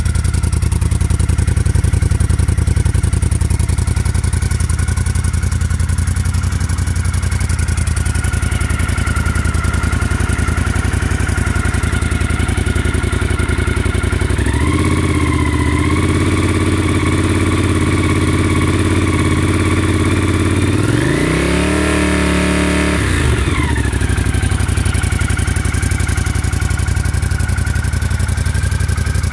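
Honda CX500's liquid-cooled V-twin idling steadily on the stand. About halfway through the engine speed steps up a little. Later the throttle is blipped once, the engine revving up and falling back to idle.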